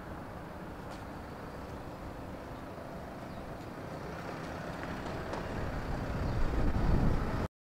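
Road traffic outdoors, with a car passing close that grows louder over the last couple of seconds, then the sound cuts off suddenly.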